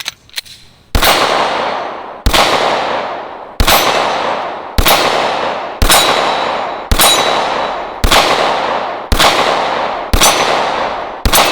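Smith & Wesson M&P9 9mm pistol fired ten times in steady succession, about one shot a second, each shot trailing off in a long fade with a ringing clang of steel targets being hit.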